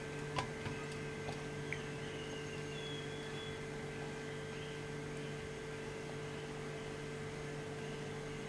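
Steady electrical hum of room tone, with a few short taps in the first two seconds, the loudest about half a second in.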